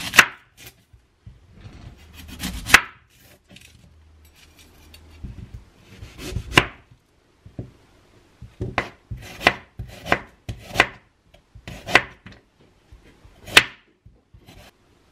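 A chef's knife cutting through a raw onion and knocking down onto a bamboo cutting board: about nine sharp knocks, a few widely spaced at first, then a quicker run of slicing strokes in the second half.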